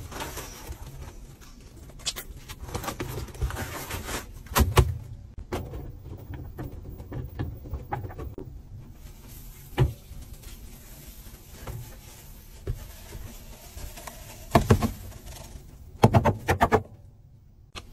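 Rubber-gloved hand rubbing and scrubbing a wet paste of powdered cleanser around a basin, with irregular scrapes and sharp knocks. A few louder bursts of handling come near the end, as powder is poured in from its box.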